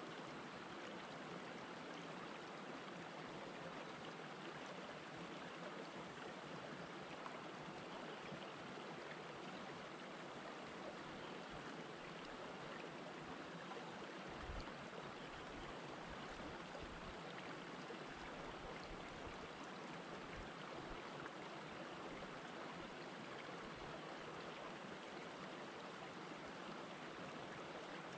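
Shallow rocky river flowing over and between boulders: a steady, even rush of water. A few brief low rumbles come near the middle.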